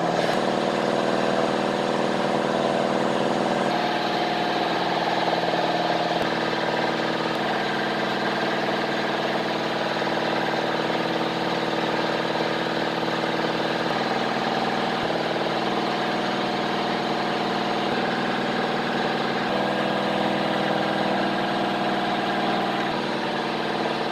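Workshop machinery running with a steady hum of several held tones. The pitch mix changes abruptly a few times.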